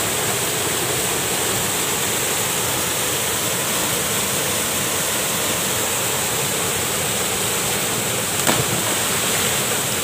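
Small waterfall pouring over a rock ledge into a pool: a steady rush of falling water, with one short knock about eight and a half seconds in.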